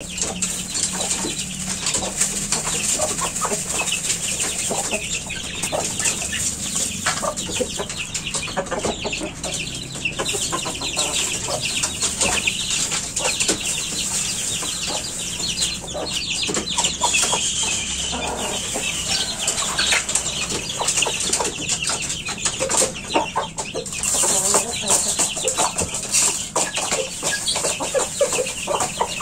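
A flock of chickens, hens with their chicks, clucking and calling in short, irregular calls over a steady high-pitched hiss.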